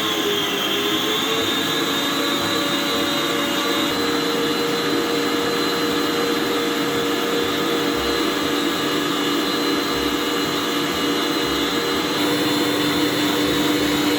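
Electric mixer running at high speed, whipping eggs and sugar into a foamy mass for a sponge base. It makes a steady motor whine whose pitch wavers at the start and which gets a little louder near the end.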